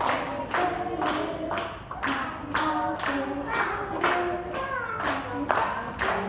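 A song with a voice singing over a clapping beat, about two claps a second.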